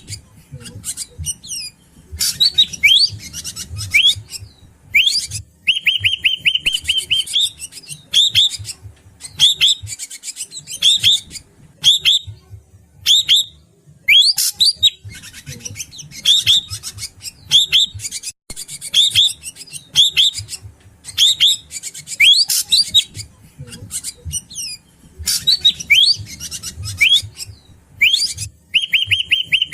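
Drongo (srigunting batu) calling over and over in short phrases of sharp whistled and chattering notes with brief pauses between them, with a fast buzzing rattle about six seconds in and again near the end. This is a lure recording of its call, with a low rumble underneath.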